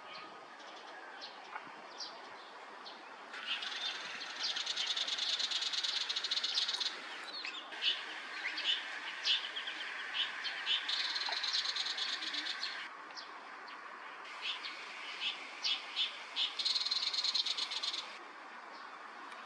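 Male tiger shrike calling: a series of short, sharp notes. Three times, a dense buzzing sound lasting a few seconds sits over the notes.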